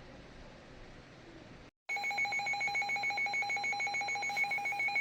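Emergency alert broadcast tone: after a moment of faint radio hiss and a brief dropout, a loud, buzzy electronic alert tone starts about two seconds in and holds steady. It is the attention signal that precedes a special marine warning.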